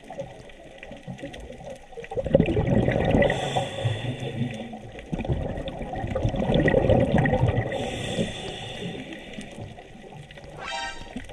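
Scuba diver breathing through a regulator underwater: a hiss on each inhale, then a long rush of exhaled bubbles, twice. A short buzzing tone near the end.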